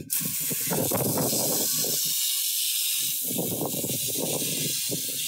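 Hose spray nozzle jetting water onto the mud-caked final drive and track of a CAT 299D compact track loader: a steady hiss that switches on suddenly, with a coarser spatter of water striking the machine that comes and goes.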